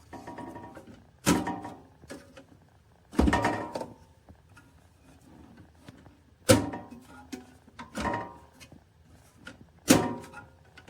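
Small sheet-metal tool box clunking as it is handled: five sharp knocks a second or two apart, each with a short metallic ring.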